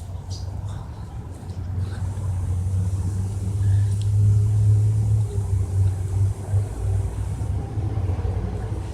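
Low rumble of a motor vehicle's engine, growing louder about three seconds in and easing off again after about six seconds.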